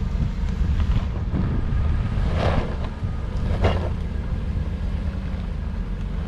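Jeep engine running low and steady while crawling over rock, with wind buffeting the microphone. Two short crunching bursts come about two and a half and three and a half seconds in.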